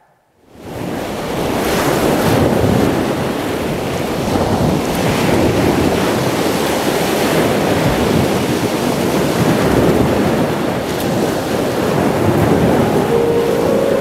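Recorded ocean surf, waves washing in slow swells, played over a hall's sound system as the opening of a dance track; it fades in about half a second in, and faint musical notes begin near the end.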